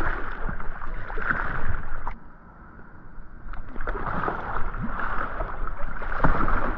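Pool water splashing and sloshing around a capsizing whitewater kayak. The sound drops and turns muffled for about a second in the middle, then splashing picks up again as the paddler surfaces beside the upturned boat after a wet exit.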